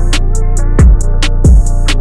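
Electronic music with a heavy bass line and a steady drum-machine beat.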